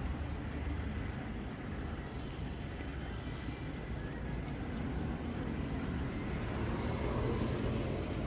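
Street ambience with a steady low rumble of passing road traffic, growing a little louder near the end.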